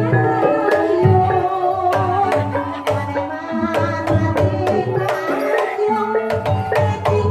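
Javanese ebeg accompaniment music: tuned percussion plays a stepping melody of ringing notes over a steady pattern of deep kendang hand-drum strokes and sharp drum slaps.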